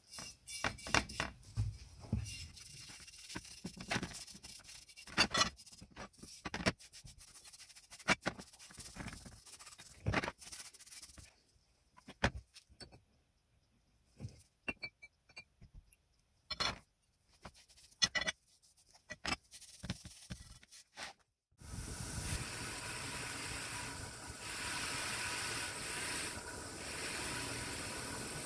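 Irregular clicks, knocks and light scraping of small metal or wooden parts being handled and worked by hand. About three-quarters of the way through, a steady hiss starts and runs on.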